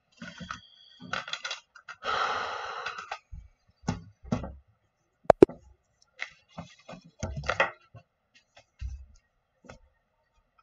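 Scattered small knocks, clicks and scrapes of handling at a desk, with a breathy rustle lasting about a second two seconds in and a sharp double click about five seconds in.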